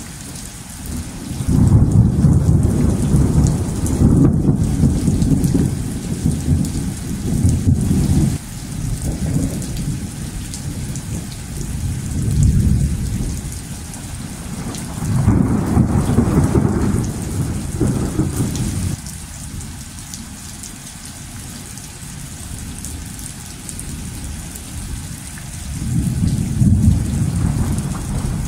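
Steady rain with thunder rolling over it several times: a long roll from about two seconds in to about eight seconds, then shorter rolls around the middle and again near the end.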